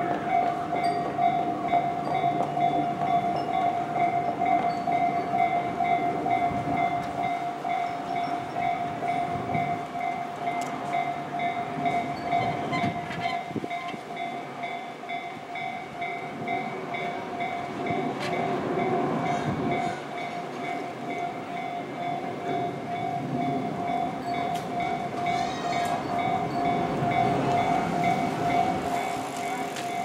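Japanese level-crossing warning bell ringing, a steady repeating electronic tone while the barriers are lowered: the signal that a train is approaching.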